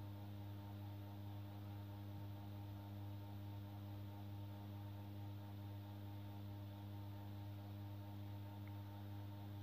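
Faint, steady electrical mains hum with a buzzy stack of overtones, unchanging throughout.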